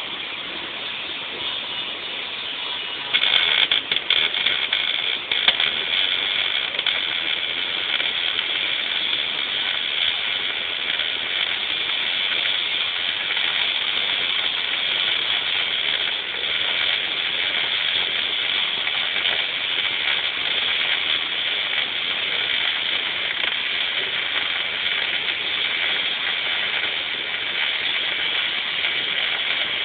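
Welding arc struck about three seconds in, spiking unevenly for a couple of seconds, then burning with a steady hiss as the root pass is laid.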